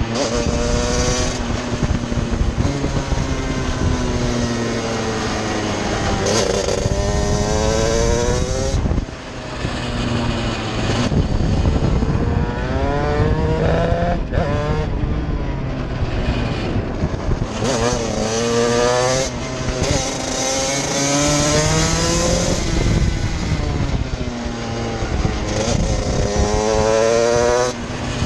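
Stock Honda CR125 125cc two-stroke single in a shifter kart, heard onboard at racing speed. It revs up again and again, the pitch climbing and stepping with each gear change. The engine note drops off sharply twice, about nine seconds in and near the end, as the throttle is lifted.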